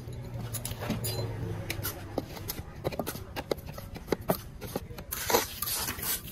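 A hand trowel scraping and tapping as it spreads wet cement slurry over a metal jali mould, in scattered short strokes with a louder scrape about five seconds in.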